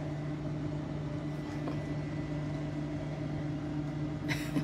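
A steady low mechanical hum from a running household appliance, such as a fan or air conditioner, with a faint high whine. A short burst of noise comes near the end.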